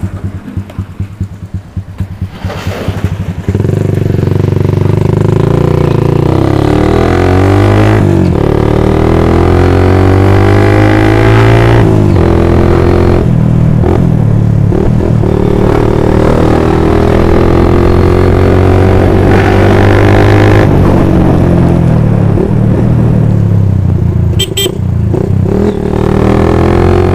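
Motorcycle engine under way, starting low and uneven and then running loud from about three and a half seconds in, its pitch climbing and dropping back several times as the rider accelerates and changes gear. A brief high beep sounds near the end.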